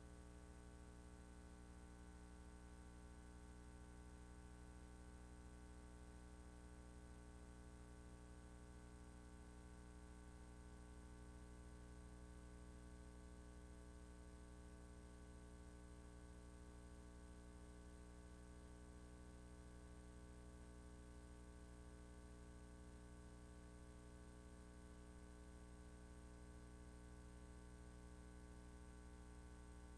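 Near silence with a faint, steady electrical mains hum carrying many evenly spaced overtones.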